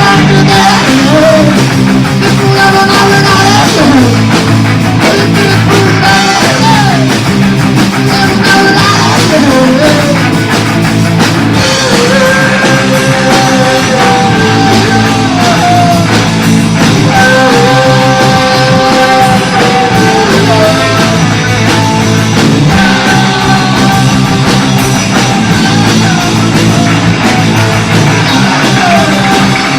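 A punk rock band's demo recording playing loud: a full, dense band sound with a held melody line on top whose notes bend and slide.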